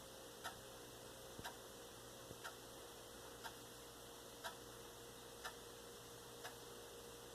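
Faint steady ticking, one tick every second, over low room hiss.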